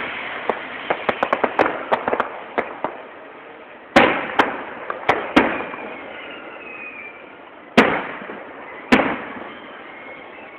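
Aerial fireworks shells bursting: a quick run of small crackling pops in the first three seconds, then loud bangs about four, five, eight and nine seconds in, each trailing off in a rolling echo.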